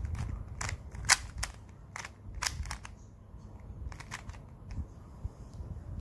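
Plastic twisty-puzzle cube's layers snapping as they are turned by hand: a series of sharp, irregular clicks, the loudest about a second in, over a soft low handling rumble.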